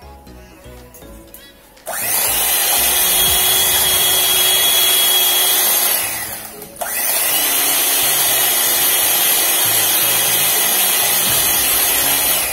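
Electric hand mixer running at speed in a glass bowl, beating eggs with freshly added sugar that has not yet dissolved. It starts about two seconds in, cuts out briefly a little past the midpoint, then runs steadily again.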